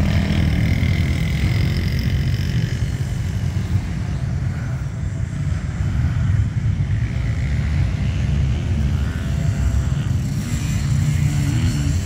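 Dirt bike engines running and revving around a motocross track, over a constant low rumble.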